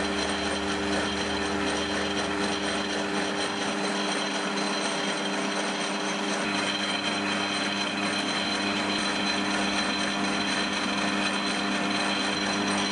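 Small metal lathe running steadily while its cutting tool turns down a thin metal pin: an even hum of a few steady tones over a continuous rushing noise.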